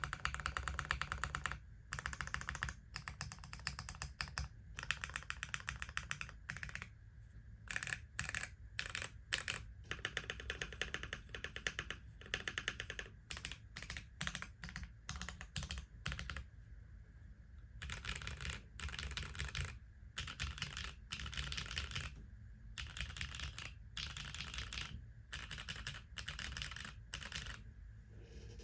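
Typing on a Keycult 1/60 custom mechanical keyboard with lubed Gateron Brown tactile switches on an aluminium leafspring plate and GMK keycaps. The keystrokes come in rapid bursts broken by short pauses.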